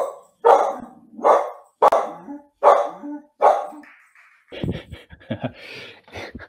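A pet dog barking repeatedly, about five barks a little under a second apart, picked up by a participant's microphone on a video call; then a couple of seconds of softer clicking and scuffling.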